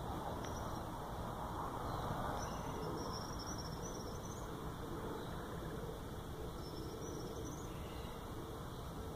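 Steady background hiss with faint high chirping calls from a small animal, three times, each a short warble that rises at its end.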